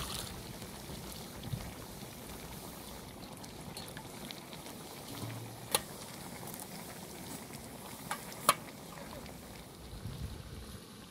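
Water poured from a metal jug into a samovar trails off at the start. Then comes steady bubbling and sizzling from a large pan of tomato paste cooking down over a wood fire, with two sharp metal clinks about six and eight and a half seconds in as the samovar's lid is fitted.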